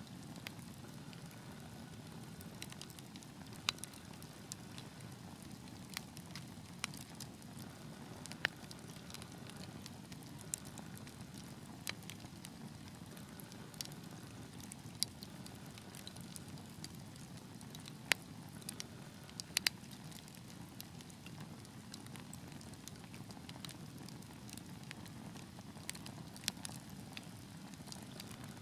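Wood fire in a fireplace crackling: a steady low rush of burning with irregular sharp pops and snaps scattered throughout, a few louder pops standing out.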